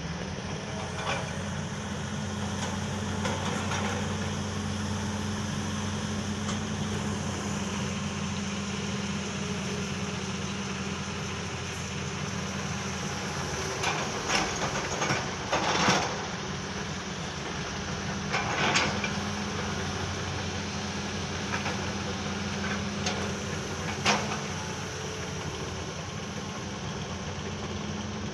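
Heavy dump truck's diesel engine running steadily, with a handful of sharp metallic knocks and clanks in the middle and once or twice later.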